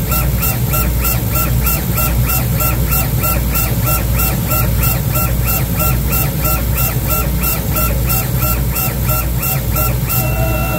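Laguna laser engraver's head motors whining in short back-and-forth strokes, about four or five a second, as the head engraves the bamboo board, over a steady low hum. Near the end the strokes lengthen into longer held tones.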